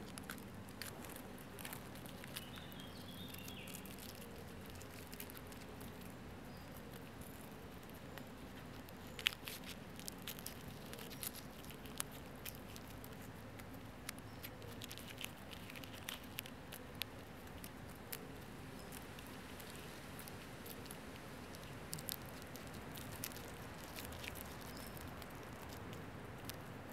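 Green rose chafer beetle chewing on a piece of banana, close to the microphone: faint, irregular soft clicks and crackles with a few sharper ticks scattered through, over a low steady background hum.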